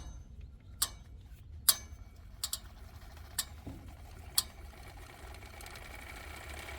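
A small plumb weight on a string being lowered down a metal sandwich chimney pipe. It gives about seven sharp, irregular ticks as it knocks against the pipe over the first four seconds or so, then a faint steady hiss with a faint thin tone.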